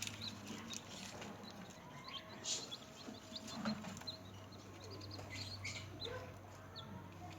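Newly hatched chicks peeping: many short, high-pitched chirps scattered throughout, with a few louder clicks, over a steady low hum.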